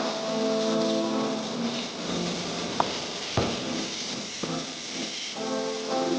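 Background music of held instrumental chords, with two sharp clicks about half a second apart near the middle.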